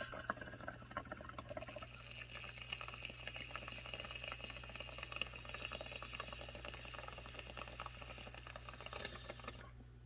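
Water bubbling in bongs as smoke is drawn through them: a faint, steady gurgle of many small pops that dies away about half a second before the end.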